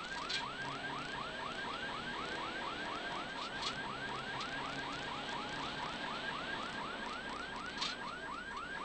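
A repeating electronic chirp, about four short rising chirps a second at a steady pace, over the low running of a rally car's engine.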